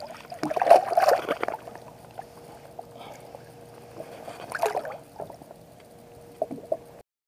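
Water sloshing and splashing at the boat's side as a smallmouth bass is let go by hand, loudest about a second in and again near five seconds, with a few small knocks later. A faint steady hum runs underneath, and the sound cuts off suddenly just before the end.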